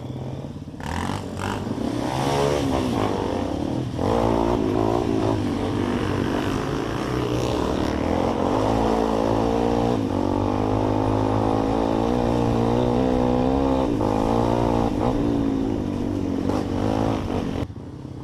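Trail motorcycle engine revving up and down under load, louder from about four seconds in, easing off near the end.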